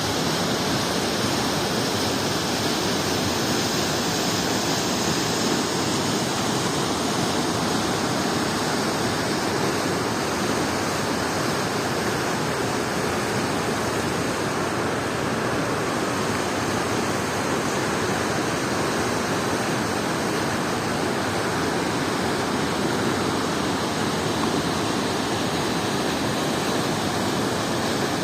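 Waterfall rushing, a steady, loud, unbroken roar of falling water.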